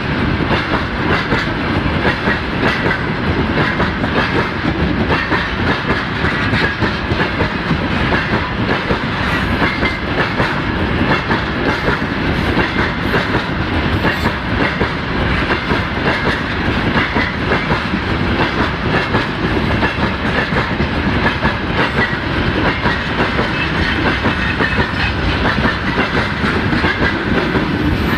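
Freight train wagons rolling past, their wheels clattering steadily over the rail joints.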